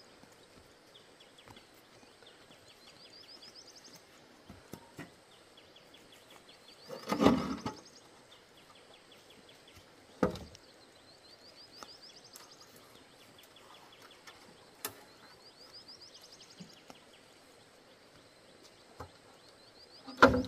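Corrugated roofing sheets being handled on the ground: a scraping clatter about seven seconds in, a sharp knock about three seconds later and another near the end, over faint repeated chirping.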